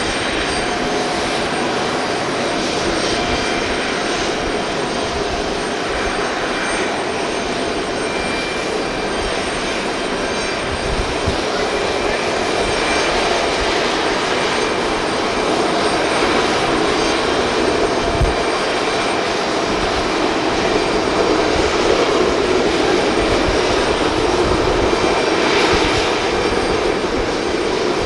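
Boeing 737-500's CFM56 jet engines running steadily: a broad rush with thin high whining tones, growing a little louder about halfway through.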